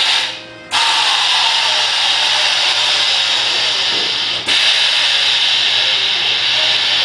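Compressed air hissing steadily out of a golf cart's air ride suspension as the air bags are let down and the cart lowers, with a brief break about four and a half seconds in.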